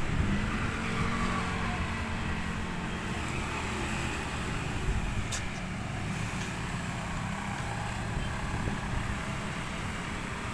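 Street traffic: motorcycle and car engines passing on a wide road, a steady low rumble.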